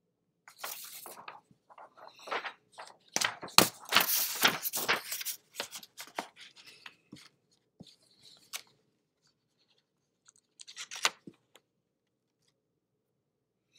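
Sheets of paper rustling and crinkling as they are handled and shifted, in irregular bursts that are loudest about four seconds in, with a short last burst around eleven seconds in.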